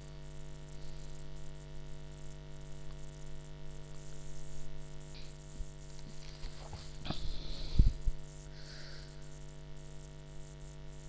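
Steady electrical mains hum with a faint buzz under it. A few faint knocks and rustles come toward the middle, and the loudest, a dull bump, comes about eight seconds in.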